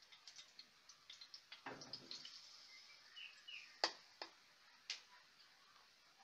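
Faint clicks and taps of a plastic ladle against a plastic batter container and a pan as pancake batter is scooped and poured, with a few sharper clicks about four to five seconds in.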